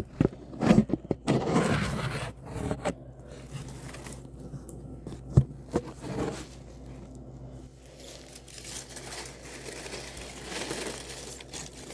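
Gloved hands digging and scraping through loose potting soil in a cardboard box, with irregular rustles and scrapes. These are busiest in the first couple of seconds, and there is one sharp knock about five seconds in.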